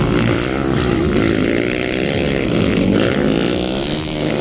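Several motocross dirt-bike engines revving, their pitches rising and falling and overlapping as the bikes race around a dirt track.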